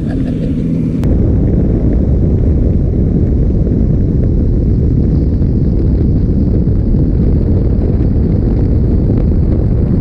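Heavy, steady wind buffeting on the microphone of a boat running at speed across open water, a dull low rumble that cuts in abruptly about a second in.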